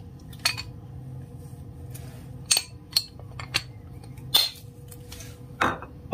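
Kitchen things handled on the counter as olive oil is got ready for the meat: about six separate sharp clicks and knocks, then a heavier thump at the end, over a faint steady hum.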